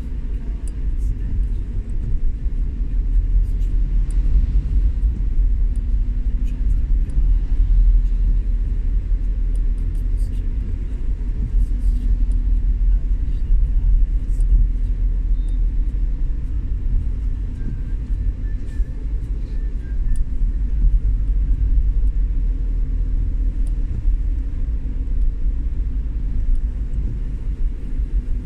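Steady low rumble of a vehicle on the move, road and engine noise, with faint scattered ticks over it.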